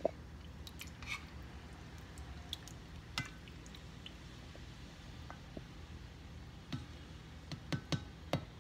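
A spoon moving in a pot of saucy pork adobo: a few short wet squishes and light clicks, bunched together near the end, over a low steady hum.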